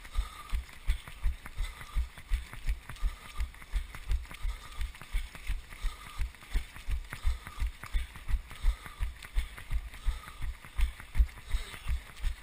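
A runner's own footfalls at race pace, thudding through a body-worn action camera, about three strides a second, with the steps of the surrounding pack of runners on the road behind.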